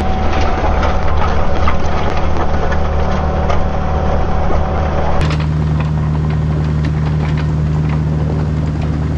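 Kubota diesel engine running steadily under work, with scattered clicks and knocks of the bucket and rocks as the driveway gravel is worked.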